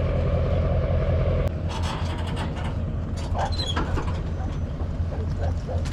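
Boat motor running steadily on open water, with wind on the microphone and water noise. A higher part of the hum cuts off about a second and a half in, followed by scattered light knocks and splashes.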